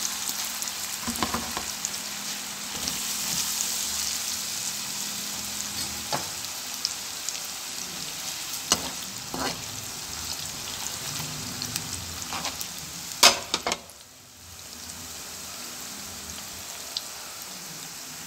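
Cornflour-coated potato sticks deep-frying in hot oil in a kadai: a steady bubbling sizzle with scattered crackles, the sound of raw fries just added to hot oil. A few sharp clicks stand out, the loudest about two-thirds of the way through. Right after that the sizzle drops away briefly and comes back quieter and steady.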